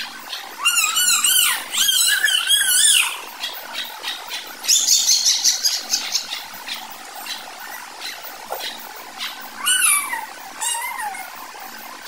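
Domestic chicks peeping loudly: long wavering calls in the first few seconds, a quick run of higher, rapid peeps about five seconds in, and another call falling in pitch near ten seconds.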